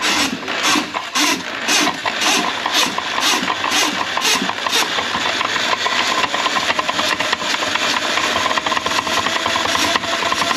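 Motorized drain-cleaning machine (drain snake) running as it works a grease-clogged kitchen drain line, with a regular knock about twice a second through the first half before it settles into a steady run.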